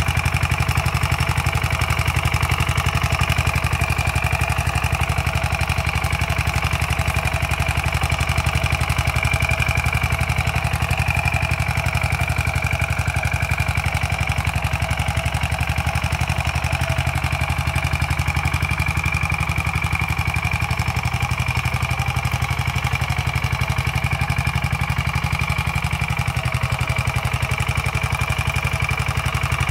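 Rotary tiller's engine running steadily as the tiller churns plant residue into the soil.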